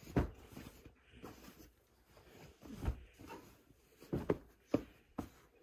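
Bedding being handled on a bed: fabric rustling with a series of soft thumps, the first, just after the start, the loudest.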